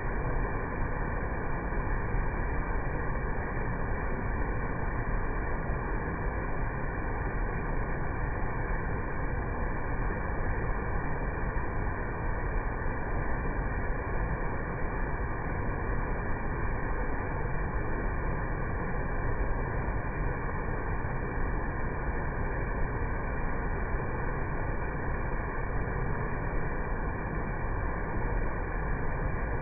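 Waterfall in heavy flow, its volume swollen by typhoon rain: a steady, unbroken rush of falling water.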